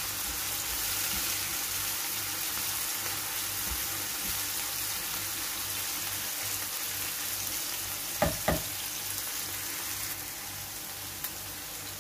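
Diced beef, onion and minced garlic sizzling in oil in a nonstick frying pan as a silicone spatula stirs them, cooking until the raw garlic smell is gone. Two sharp knocks come close together about eight seconds in.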